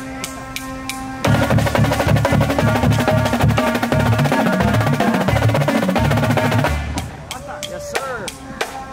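Drum corps drumline warming up: a steady ticking of about four a second, then about a second in the full line comes in loud for some five seconds, snares rolling over pitched bass drums playing changing low notes, before it drops back to the ticking.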